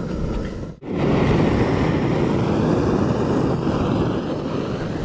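Strong wind buffeting the microphone: a loud, rough rumbling rush. It drops out for an instant just under a second in, then comes back louder.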